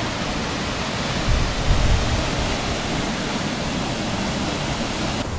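Steady rushing of a waterfall, an even wash of falling water, with a brief low rumble about a second and a half in.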